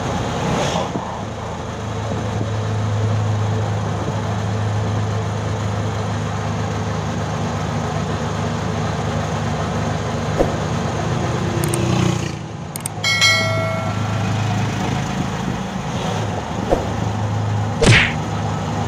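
Riding on board an open-sided motor vehicle: the engine hums steadily with road and wind noise. About thirteen seconds in, a short pitched tone sounds, and near the end there is a brief sharp whoosh.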